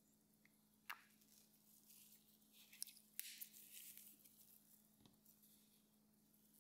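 Faint handling of a squeeze bottle of Brasso metal polish and a microfiber cloth: a squirt of polish onto the cloth, a few sharp clicks and rustles between about one and four seconds in, and a soft thump about five seconds in as the bottle is set down on the mat.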